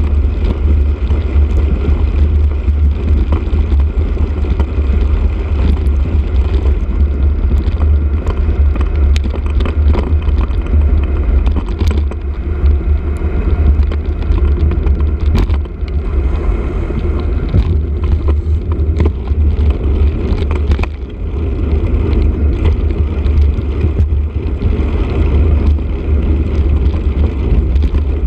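Steady low rumble of a moving bicycle picked up by a camera mounted on the bike: wind buffeting the microphone along with tyre and frame vibration, with scattered small clicks and rattles.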